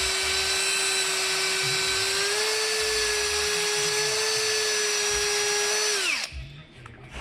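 Handheld power drill running steadily with a high, even whine, speeding up slightly about two seconds in, then winding down and stopping about six seconds in.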